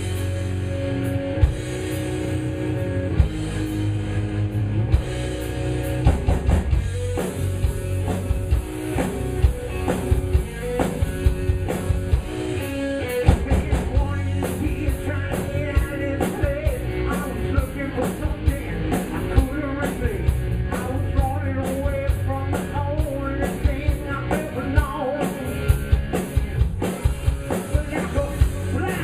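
Rock band playing live: drum kit and guitar, with a heavy low end, kicking in together at the start and carrying on steadily.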